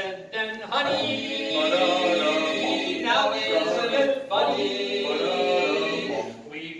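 A male vocal quartet singing a cappella, in short phrases of held notes.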